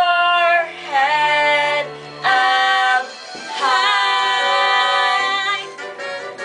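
Young voices singing a musical-theatre song over a recorded backing track, ending the phrase with a held note of about two seconds in the second half.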